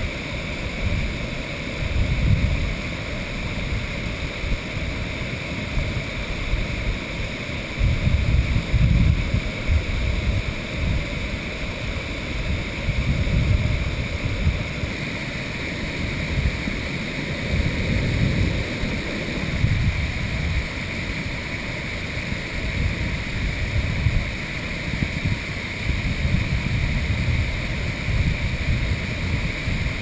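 Waterfall rushing steadily, a constant roar of falling water, with gusts of wind buffeting the microphone every few seconds.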